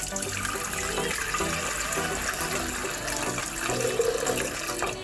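Water being poured steadily into a food processor's mixing bowl, stopping near the end once 500 g is in.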